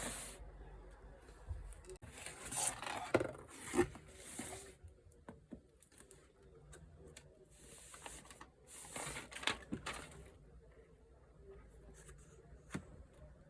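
Unboxing handling noise: a speaker's cardboard retail box and its packaging being handled, with two bouts of rustling and scraping and scattered light taps and clicks.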